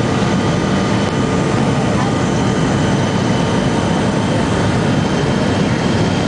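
Jet airliner cabin noise on approach: a steady roar of engines and rushing air heard from inside the passenger cabin, with a thin, high steady whine over it.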